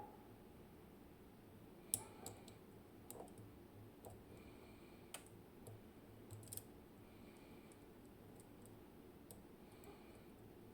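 Faint, irregular metallic clicks of a lock pick working the tapered pins of a zIKON RW6 dimple lock under tension, with the loudest click about two seconds in.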